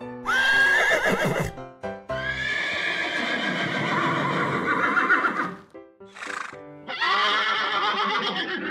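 Horse whinnying sound effects, several neighs one after another, over background music.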